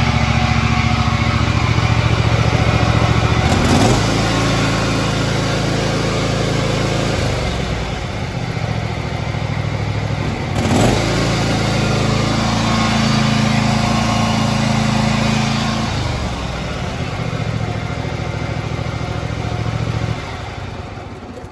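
John Deere Z655 zero-turn mower's 27 hp two-cylinder Briggs & Stratton engine running steadily, its tone shifting a few times. There are two brief louder bumps, about four and eleven seconds in, and the sound dies away at the very end.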